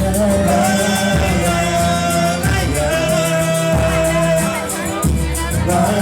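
Band music with singing: a Portuguese-language song over a steady beat and bass line, with long held melody notes.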